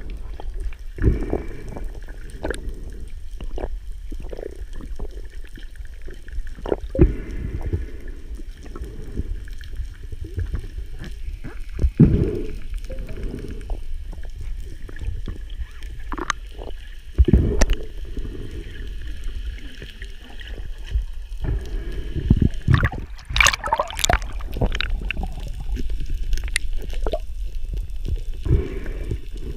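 Underwater water noise picked up through an action-camera housing: a steady low muffled rumble broken by many short knocks and thumps, with a cluster of sharp clicks a little past the middle.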